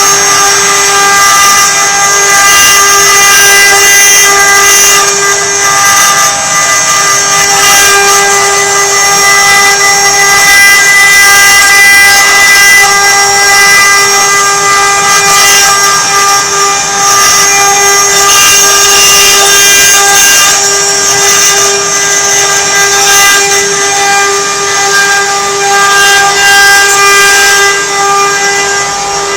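CNC carving machine running, its router spindle giving a steady high whine with a hiss of cutting noise over it.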